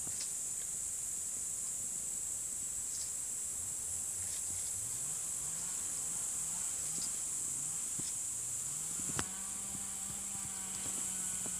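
Steady high-pitched insect chirring. A faint low drone rises in repeated steps in the second half, then holds steady, and there is a single sharp click about nine seconds in.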